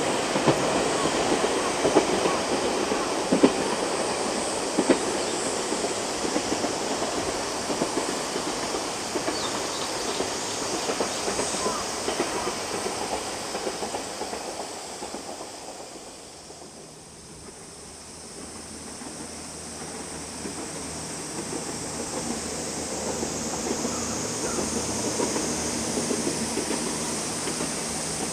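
A KiHa 40-series diesel railcar running past on jointed track, its wheels clicking over the rail joints. The noise fades away to a low point a little past halfway, then a steady rumble builds again towards the end.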